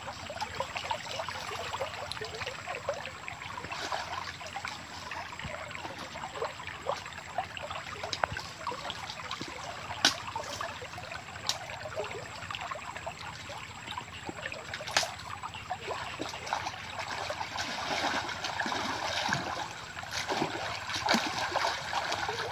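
Fast-flowing river water rushing steadily, swollen and running hard after rain, with a few sharp clicks along the way. Toward the end, water sloshes and splashes as someone wades through the current.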